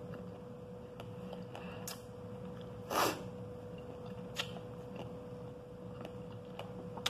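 Faint chewing and mouth noises from eating pomegranate seeds: a few small clicks and one short louder noise about three seconds in, over a faint steady hum.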